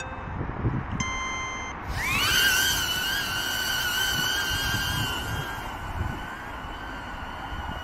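HoverAir X1 palm-launched drone: a short beep, then its propellers spin up with a rising whine about two seconds in that settles into a steady high-pitched hover hum.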